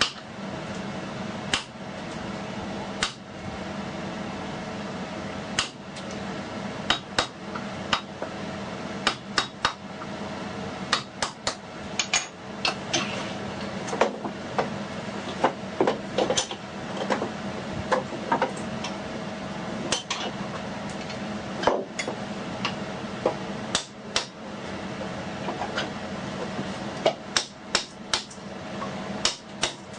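Hammer tapping a chisel into wood in irregular strikes, sometimes in quick clusters, a few with a short ring, as the waste is chopped and pared from a mortise. A steady low hum runs underneath.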